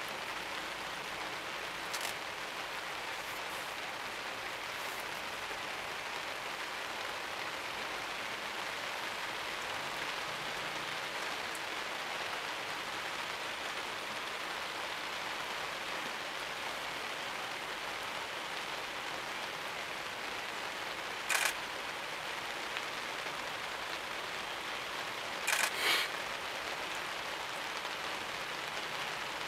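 Steady rain falling, an even hiss. A few short sharp clicks cut through it, the loudest two close together near the end.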